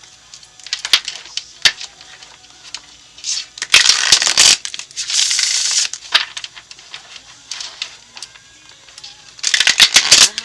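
Tarot cards being shuffled: scattered card clicks, then a rattling burst of cards about four seconds in, a brief sliding hiss, and another rattling burst near the end.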